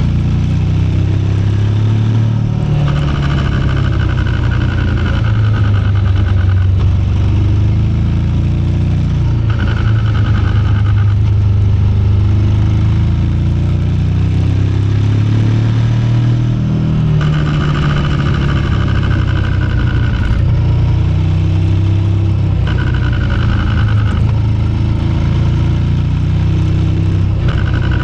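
KTM 1390 Super Adventure S Evo's V-twin engine running under way, with a higher-pitched whirring that comes and goes about five times. The owner traced this noise to a loose drive chain.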